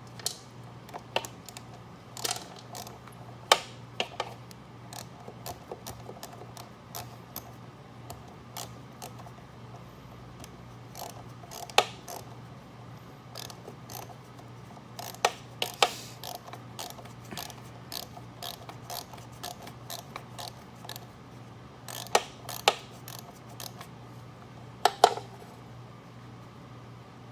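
Ratchet wrench clicking in irregular runs, with louder metal clinks now and then, as the 7 mm bolts holding a lawn mower carburetor's float bowl are undone. A faint steady low hum runs underneath.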